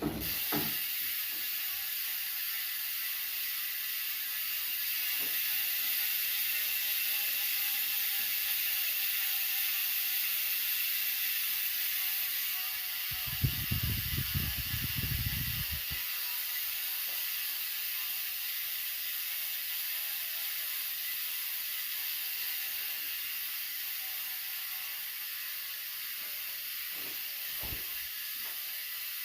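Freehub pawls ratcheting on a Giant Reign 1 mountain bike's rear wheel, over a steady hiss. A low rumble lasts about three seconds near the middle, and a few short knocks come near the start and near the end.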